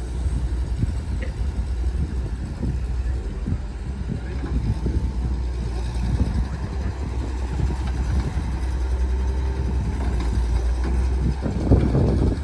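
Heavy earthmoving machine's diesel engine running with a steady low rumble, overlaid with rattles and knocks; it gets louder near the end.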